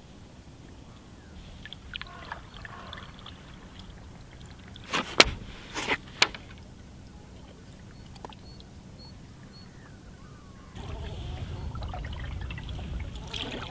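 Cedar strip canoe being paddled on calm water: quiet paddle strokes and water trickling off the blade. A few sharp knocks come close together about five to six seconds in, and a steady low rumble with more water sound starts near the end.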